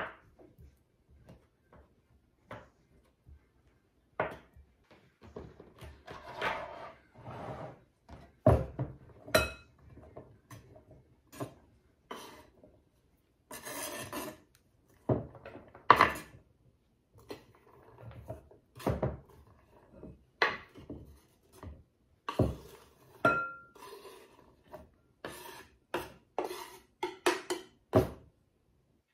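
A kitchen knife on a bamboo cutting board: irregular chopping knocks and scrapes as chopped chicken, red onion and celery are pushed off the board into a glass bowl with the blade.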